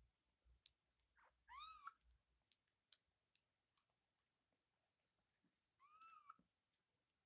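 Cat mewing: two short, high-pitched mews, one rising and falling about a second and a half in and another near six seconds, with faint soft clicks between.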